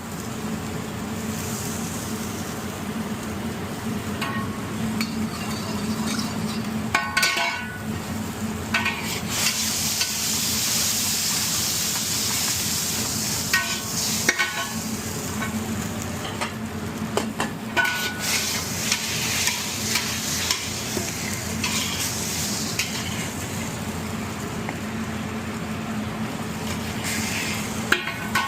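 Food frying and sizzling in a pan, with a steady hiss that swells twice, about ten seconds in and again near twenty. A utensil stirs and scrapes, giving scattered clicks and knocks against the pan.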